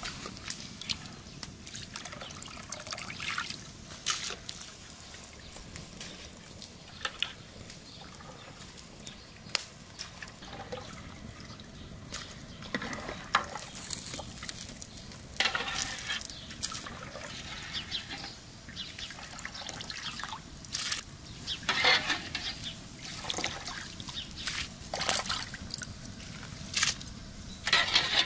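Water trickling and splashing off a long-handled skimmer as boiled rice is scooped out of a pot of boiling water, in repeated pours with louder splashes now and then.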